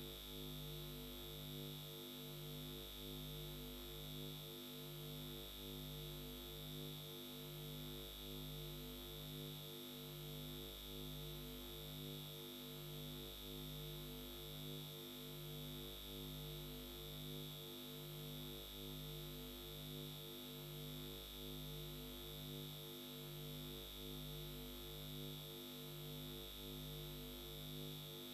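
Faint steady electronic hum: several low tones pulsing evenly over a constant high whine, with no speech or music.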